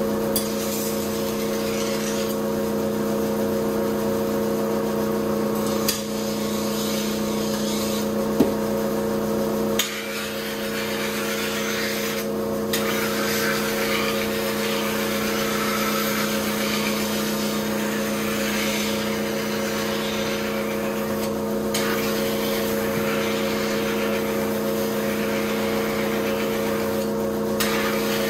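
Kitchen knife being ground on a motor-driven rotating whetstone: a steady machine hum under a rasping scrape of steel on stone. The scrape breaks off briefly three times as the blade is lifted and set back, with a few sharp clicks in the first third.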